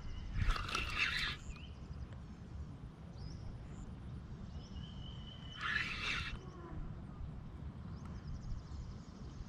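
Birds calling outdoors, with two louder, brief calls about half a second in and near six seconds, and faint chirps between them.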